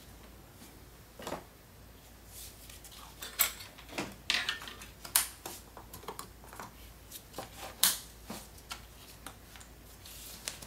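Scattered sharp clicks and knocks of plastic engine-bay parts, hoses and connectors being handled and snapped into place by hand, a few louder snaps among quieter taps.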